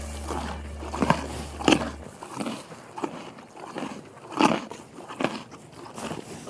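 A horse making a string of irregular sharp crunching knocks, about one or two a second. A steady low music drone runs underneath and stops about two seconds in.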